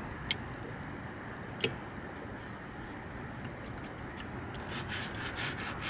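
Quiet handling sounds of a hand among loose parts inside an opened Otari MX5050 reel-to-reel tape recorder: light rubbing, a sharp click just after the start and another about a second and a half in, then a run of faint ticks and scrapes over the last second or so.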